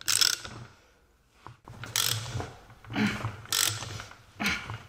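Hand socket ratchet clicking in short strokes, about one a second, as the puller's forcing screw is tightened against a stuck differential side bearing.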